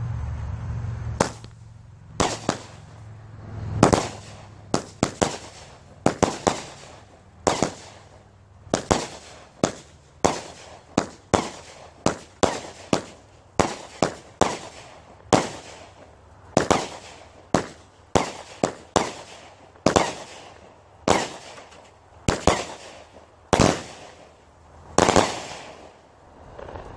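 The Cowboy consumer fireworks cake firing a long, irregular series of shots and aerial bursts, about one to two a second, some in quick clusters. The heaviest bursts come about four seconds in and near the end.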